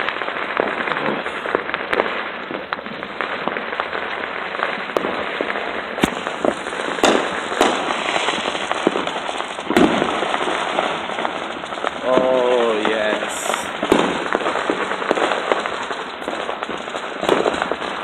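Many fireworks and firecrackers going off at once: a continuous crackling haze with many sharp bangs, a few louder ones about six, seven and ten seconds in.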